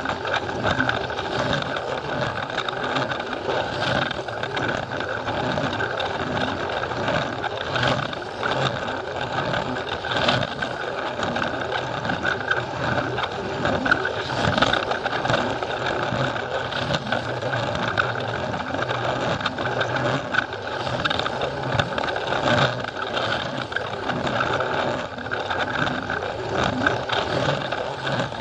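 Plarail battery-powered toy train running steadily on plastic track: the small electric motor and gearbox whirring, with scattered clicks and rattles from the wheels.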